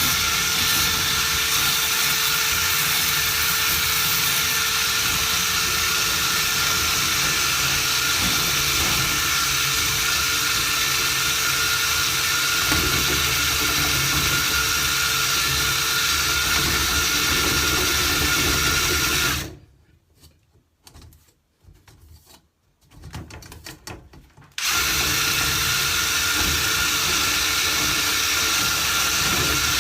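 Power drill spinning a rotary dryer-vent cleaning brush up a vertical duct run, running steadily. It stops abruptly about two-thirds of the way through, then starts again about five seconds later.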